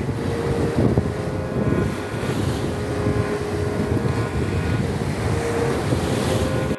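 Wind buffeting the microphone over a steady low rumble, with a faint hum running through it.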